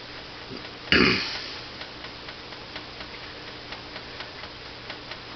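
A sudden loud thump about a second in, then faint light clicks about two a second as a small Allen wrench stirs two-part JB Weld epoxy on cardboard.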